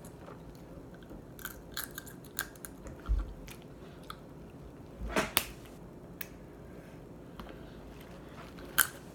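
Close-up eating sounds of crab legs: chewing, with small clicks and crackles as pieces of crab shell are broken and picked apart by hand. There is a louder sharp crack about five seconds in.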